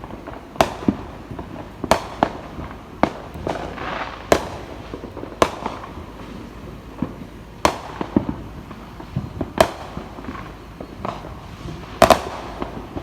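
Fireworks going off: about a dozen sharp bangs at irregular intervals, one or two seconds apart, with a stretch of crackling about four seconds in and the loudest bang near the end.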